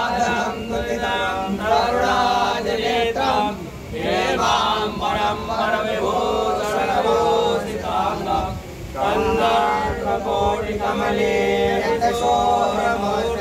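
Male voices chanting a Hindu devotional hymn in sung phrases of a few seconds each, with short breaks between them.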